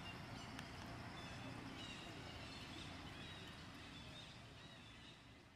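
Faint outdoor ambience with a few short, high bird chirps, fading out near the end.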